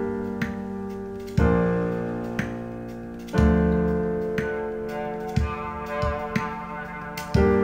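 Recorded piano music played back through Cabasse Antigua MC170 loudspeakers: full chords struck about every two seconds, each ringing and fading away, with lighter notes in between.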